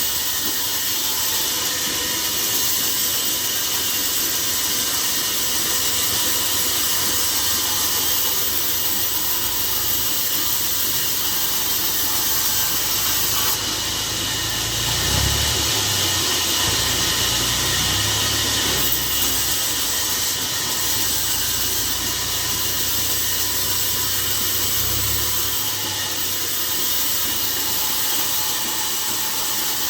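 Sawmill saw cutting through timber, a loud, steady hissing rasp. Partway through, a low machine hum joins it for about ten seconds.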